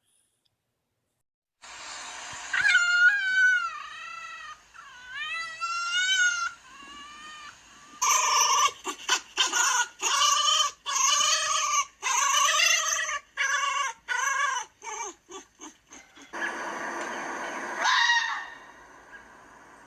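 Fox calling: wavering, whining high-pitched cries, then a long series of short yelping barks that get shorter and quicker, and a harsh scream near the end.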